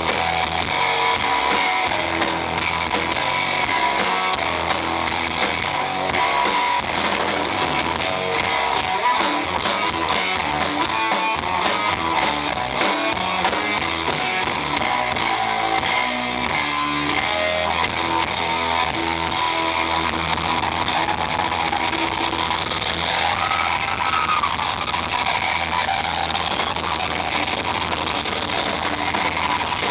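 A band playing rock music with guitar and drums, heavily distorted in the recording.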